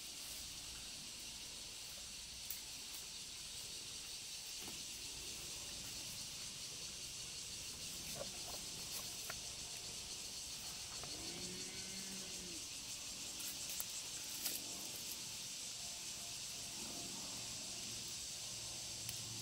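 Steady high-pitched insect drone, with a cow mooing once, short and low, rising then falling, a little past halfway, and a fainter low call near the end.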